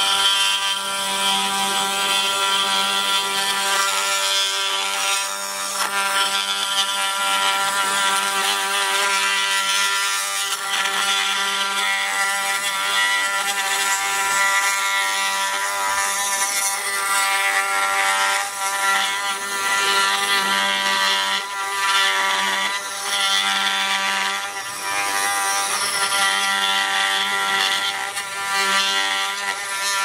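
Oscillating multi-tool running steadily as its blade cuts about 3 mm deep around the plastic housing of a Volvo alarm siren, a continuous high buzz that dips and swells slightly as the blade bites into the case.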